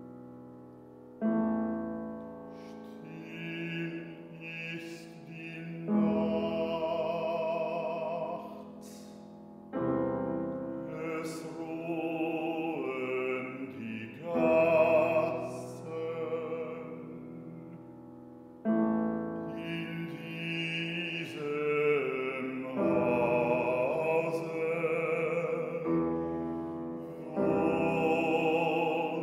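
A bass-baritone sings a slow German art song with vibrato, entering a few seconds in, over a grand piano that strikes slow, sustained low chords and lets each one ring.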